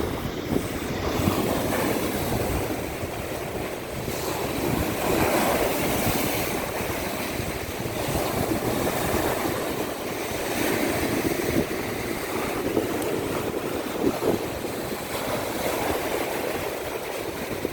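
Baltic Sea waves washing onto the shore, swelling and easing every few seconds, with wind rumbling on the microphone.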